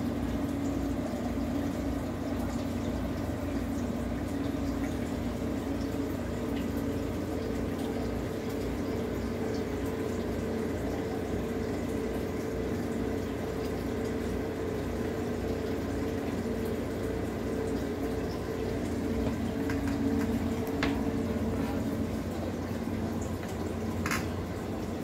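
Aquarium water bubbling and trickling steadily over a steady low hum from the tank's pump, with a brief click near the end.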